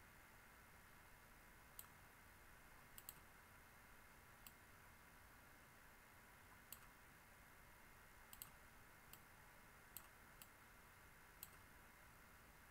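Computer mouse clicking: about ten separate, sharp clicks at irregular intervals, faint over a steady low hiss.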